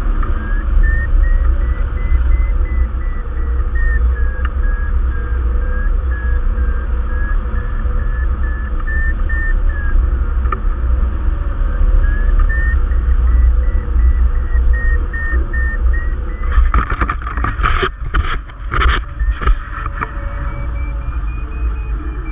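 Hang glider variometer beeping in a fast string of beeps, its pitch slowly rising and falling as the glider climbs in a thermal, over heavy wind rush on the microphone. A few hard gusts of wind noise hit the microphone about three-quarters of the way through.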